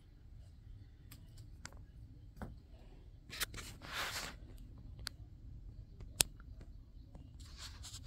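Quiet room with scattered small clicks and light rustling: a short rustle about three and a half to four seconds in, and one sharp click about six seconds in.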